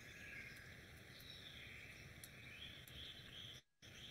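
Near silence: faint steady hiss, cutting out completely for a moment near the end.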